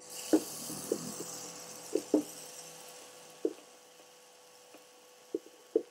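Waffle batter poured onto a hot greased waffle-maker plate: a sizzle that starts suddenly and fades away over a few seconds, with a few light knocks and ticks.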